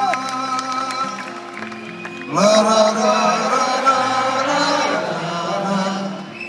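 Live concert music heard from among the audience: the closing instrumental of a rock song, sustained chords, with a louder melody line of long held, wavering notes coming in about two seconds in and breaking off near the end.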